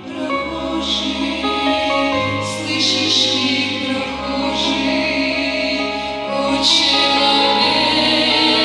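A worship song sung with instrumental backing: held sung notes over a steady bass line.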